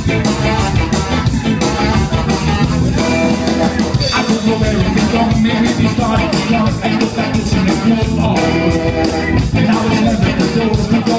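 Live band playing an up-tempo rock number with a steady beat: electric bass, drums, keyboards and saxophone, with a male singer at the microphone.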